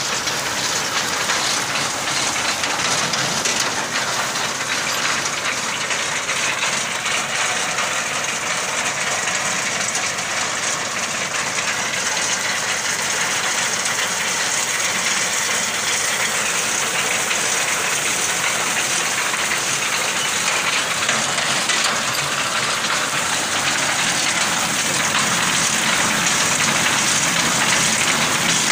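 Tractor-mounted wheat reaper at work: the tractor engine running under load mixed with the fast clatter of the cutter bar and conveyor and the hiss of stalks being cut and thrown aside, loud and steady.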